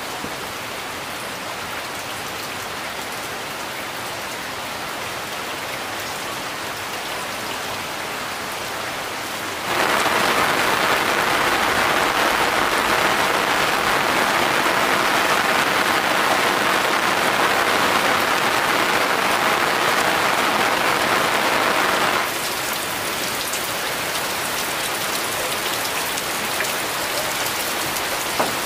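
Steady rain falling. It steps up suddenly to a louder downpour about ten seconds in, then drops back just as suddenly about twenty-two seconds in.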